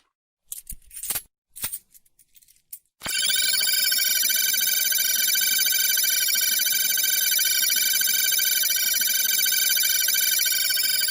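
A few short quiet clicks and scrapes, then about three seconds in a loud synthesized electronic tone sets in: several steady pitches stacked together with a fast warble and slow sweeping glides, ringtone-like, held until it cuts off at the end.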